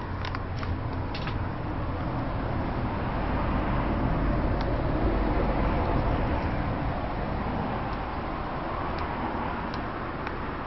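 1988 generic five-blade footprint-vent ceiling fan running: a steady rush of moving air over a low motor hum, swelling a little in the middle. A few faint clicks near the start.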